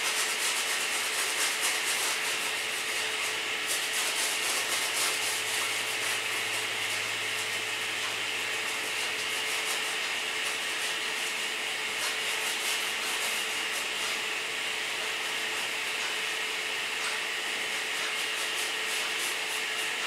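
Bristle paintbrush scrubbing acrylic paint onto a stretched canvas: a steady dry rubbing made of many quick back-and-forth strokes.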